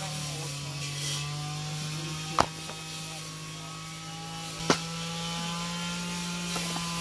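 Two sharp clacks of slate pieces knocking together, a couple of seconds apart, over a steady low mechanical hum.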